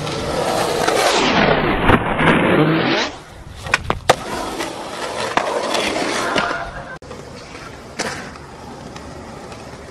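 Skateboard wheels rolling loudly on concrete. Then come sharp wooden clacks of the board popping and landing, twice close together about four seconds in and once more near eight seconds, over a quieter rolling sound.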